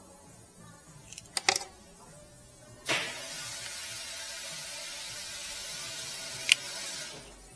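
Sharp clicks of plastic and metal as a Mazda key fob is pried open with a screwdriver. About three seconds in a steady hiss sets in, lasts about four seconds with one more sharp click, and then fades.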